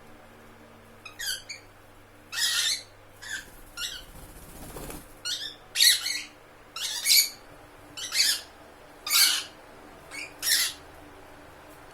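Lovebird giving about a dozen short, shrill chirping calls in irregular bursts.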